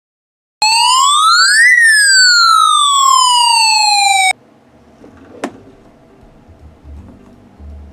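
A siren-like electronic sound effect: a clean tone that rises in pitch for about a second, then falls slowly for a few seconds before cutting off abruptly. A faint background with a single sharp click follows.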